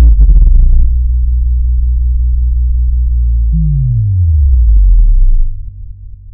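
Cinematic synthesizer sound design: a loud, deep bass drone with a crackly hit at the start and a falling pitch sweep about three and a half seconds in. It fades out near the end.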